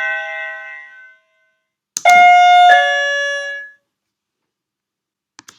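Plug-in wireless doorbell receiver chiming a two-note ding-dong, the second note lower, right after a click, as it answers a paired transmitter. The ringing of an earlier chime fades out first, and a couple of faint clicks come near the end.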